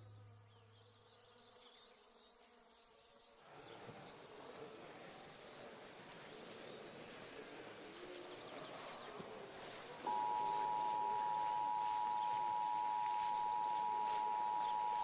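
Faint outdoor ambience with insects such as crickets chirping. About ten seconds in, the Emergency Alert System attention signal, a steady two-tone beep, starts and holds, much louder than the ambience.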